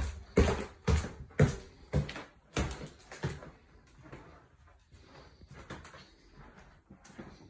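Footsteps climbing the last wooden stairs and walking across a hardwood floor: heavy thuds about two a second for the first three seconds, then softer, fainter steps.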